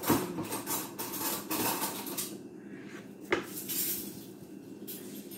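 Kitchen knife cutting through a sheet of dough, the metal blade scraping and tapping on the tiled countertop, with one sharp clink about three seconds in.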